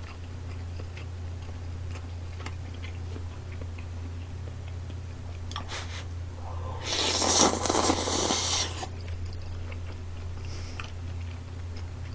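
A loud slurp lasting about two seconds, about seven seconds in, as a mouthful of glass noodles and spicy stir-fried pork intestines is sucked in off chopsticks. Faint clicks and a steady low hum sit underneath.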